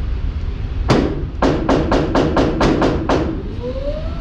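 A rapid string of sharp gunshot reports: one shot, then about eight more at roughly four a second. Near the end, a whine rises in pitch and then holds steady.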